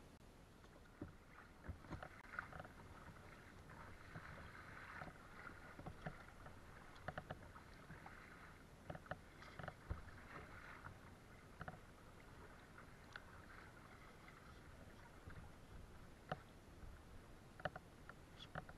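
Faint splashing and dripping of kayak paddle strokes in the water, with scattered light clicks and knocks.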